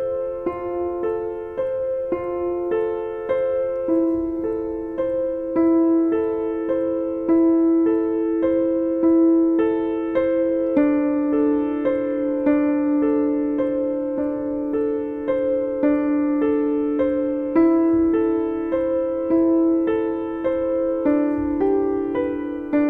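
Background music on a piano-like keyboard: a steady, even run of sustained notes, about two a second.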